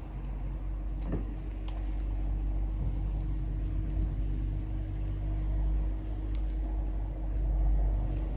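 A low, steady rumble with a constant hum, swelling near the end, over a few faint short chirps.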